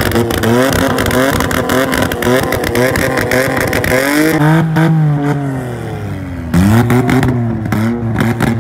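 Small Suzuki car engine revved hard over and over, its pitch climbing and falling, with rapid exhaust crackles and pops through most of it. There is a sudden louder burst of revs about two-thirds in.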